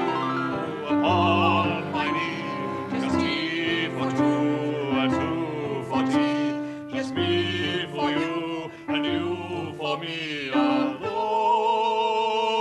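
Operatic-style singing with vibrato, accompanied on a grand piano, ending on a long held note.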